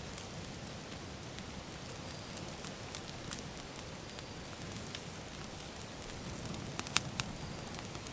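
Brush-pile bonfire burning: a steady hiss with scattered sharp crackles and pops, the loudest pop about seven seconds in. The wood and brush are wet, so the fire is burning slowly.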